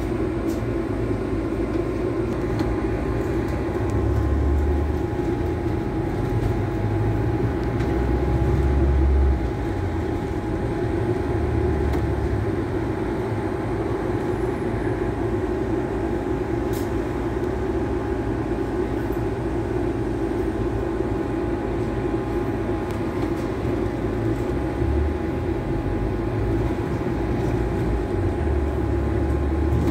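Double-decker bus heard from inside its upper deck: a steady engine drone with road rumble, and a deep low rumble that swells louder several times.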